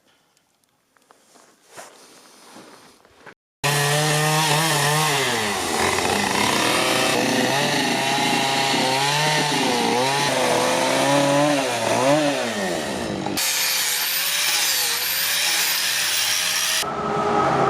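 Chainsaw cutting into wood, its engine pitch rising and falling as it bites. It starts abruptly a few seconds in after near quiet, and the sound changes suddenly twice later on, as if in separate cut-together takes.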